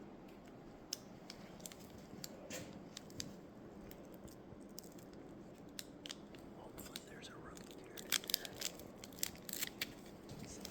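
Wax-paper wrapper of a 1990–91 O-Pee-Chee hockey card pack being torn open: faint crinkling and tearing with scattered small crackles, getting busier in the last few seconds.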